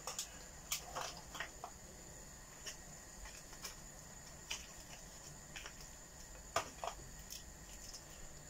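Beef stew simmering in a cast iron pot: faint, irregular little pops and ticks of bubbles bursting, about one a second.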